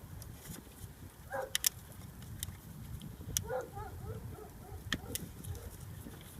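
Scattered sharp clicks and light knocks of hands handling parts in an engine bay while the rubber boot is fitted back over the alternator's wire connector, over a steady low rumble.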